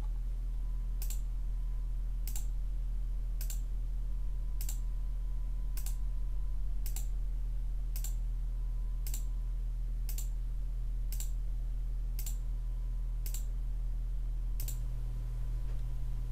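Computer mouse clicking about once a second, some fourteen single sharp clicks in a steady rhythm, over a steady low hum.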